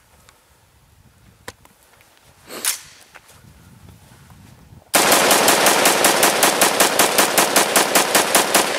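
AR-15 rifle firing a rapid string of about two dozen shots, evenly spaced at roughly six or seven a second, starting about five seconds in. The fire runs on without a break, the rifle cycling with no stoppage.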